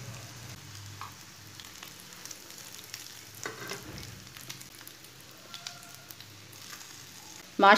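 Batter-dipped bread slices sizzling in hot oil in a frying pan, a steady faint hiss. A few light clicks and knocks come as the slices are turned with metal tongs.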